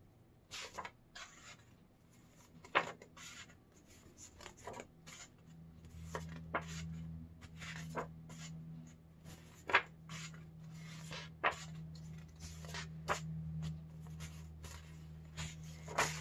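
Stack of paper flash cards being flipped one at a time, a short rustle or snap of paper every second or so. A low steady hum comes in about a third of the way through.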